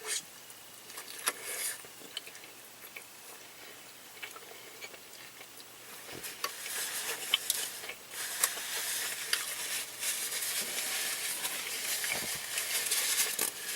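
Close-up eating sounds of a carne asada burrito being bitten and chewed. At first there are scattered small clicks; from about six seconds in comes denser, louder crackling chewing.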